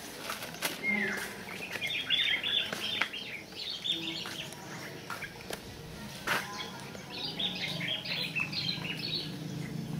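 Small birds twittering in two spells of rapid high chirps, the second starting about seven seconds in, with a few light taps and clicks among them.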